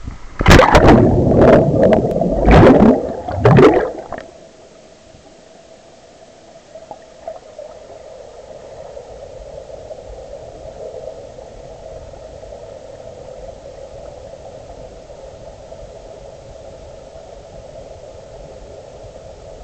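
Water heard by a GoPro as it plunges into a river pool: loud splashing and churning in several surges for about three and a half seconds as it hits the water and tumbles. After that comes a steady, muffled underwater rush with a faint hum as the camera lies lost on the bottom.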